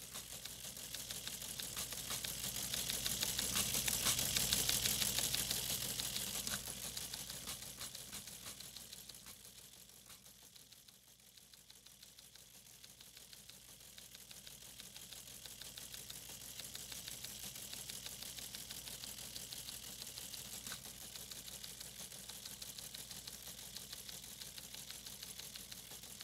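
Rapid, dense mechanical clicking like a teletype machine printing or punching tape. It swells loudest about four to five seconds in, fades almost away around eleven seconds, then returns more softly.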